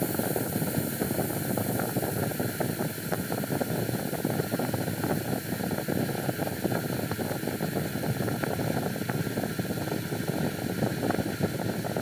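Steady rushing noise with a dense, irregular crackle all through it.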